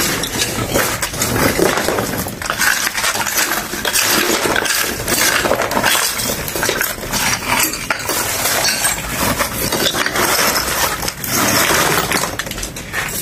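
Broken concrete chunks clinking and clattering as they are pulled out of a broken-open concrete tomb and dropped onto a rubble pile, mixed with hammer knocks on the concrete: a dense, irregular run of sharp clinks and knocks.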